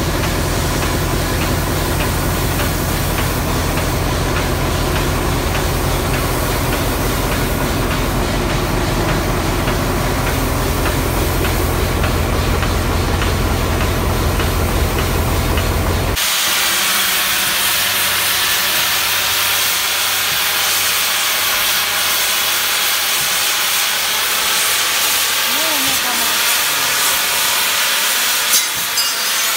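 TCDD 56548 steam locomotive standing with steam venting out low by its driving wheels in a steady, loud hiss. A low hum runs under it and stops abruptly about halfway through, leaving the hiss on its own.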